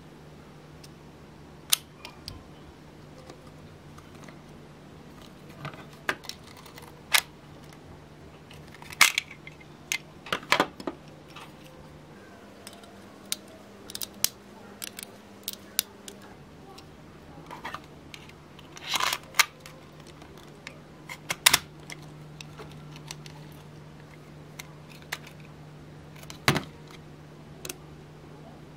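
Irregular sharp plastic clicks, snaps and rattles from handling a small RC car's pistol-grip transmitter: its battery cover off, AAA batteries pressed into the battery compartment, and its switches clicked. A faint steady hum runs underneath.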